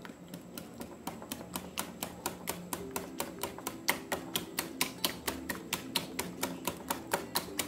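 Wire hand whisk beating a thick yogurt, honey and mayonnaise dressing in a glass bowl, the wires clicking against the glass in a fast, even rhythm of about six clicks a second.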